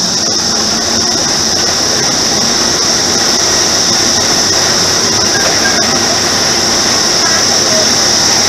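Chance Rides miniature train running along its track: the locomotive's engine and the wheels on the rails, getting slightly louder as it pulls away, over a steady high-pitched hiss.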